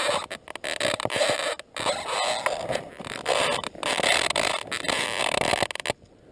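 Rough, scratchy rustling noise on a body-worn camera's microphone, dropping out briefly several times and quieter near the end.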